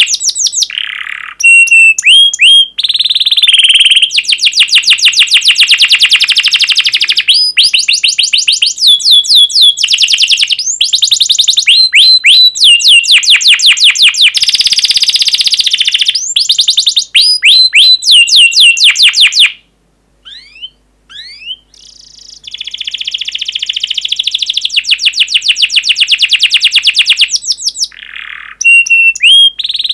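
Domestic canary singing a loud, long song made of fast trills of repeated high chirps, one phrase after another. The song breaks off for about two seconds just past the middle, then carries on with a buzzier trill and more chirp runs.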